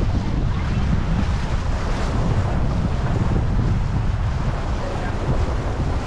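Wind buffeting the microphone over the steady rush of river water past a moving passenger boat.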